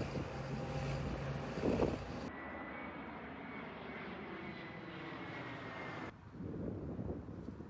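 Outdoor ambience: a steady vehicle-like engine hum with noise. It changes abruptly about two seconds in and again near six seconds, where separate shots are joined.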